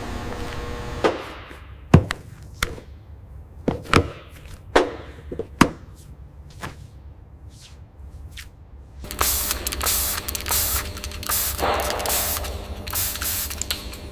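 Workshop tool sounds: a run of sharp, irregular knocks and clicks, then, about nine seconds in, a spraying hiss that comes in bursts.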